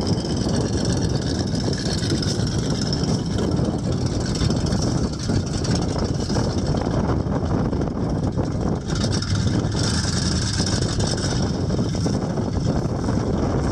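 GMC 6500 grain truck's engine running steadily.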